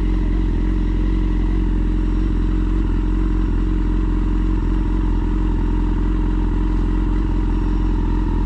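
Yamaha FZ6's inline-four engine idling steadily through a LeoVince aftermarket exhaust fitted with its dB killer.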